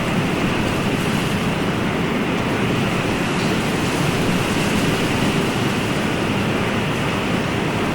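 Ocean surf: a steady, even rush of water noise with no distinct breaking surges.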